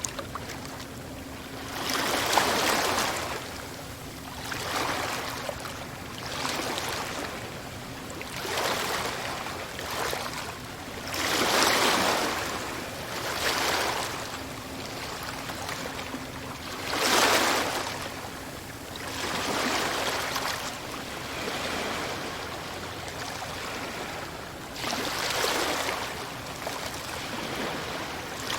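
Ocean waves washing in, a steady hiss of surf that swells and falls back every two to three seconds. The heaviest waves break about two, twelve and seventeen seconds in.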